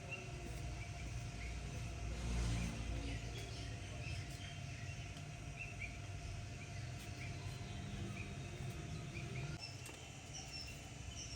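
Small birds chirping repeatedly over a low steady rumble and a faint steady hum, which ease off about ten seconds in.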